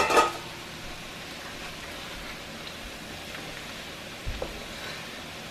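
Minced garlic frying in hot oil in a wok: a steady sizzle. A short loud sound comes right at the start, and a brief knock about four seconds in.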